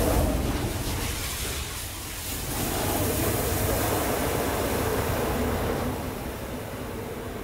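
Machines at the mouths of huge flanged steel pipes start all at once: a sudden loud rushing roar with a deep rumble. About two and a half seconds in, a steady droning tone sets in within the roar as the pipes sound.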